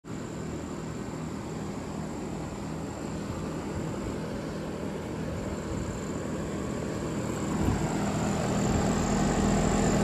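Trane central air-conditioner condenser running: a steady low compressor hum under the whoosh of the condenser fan, with a thin high steady tone above. It grows louder toward the end.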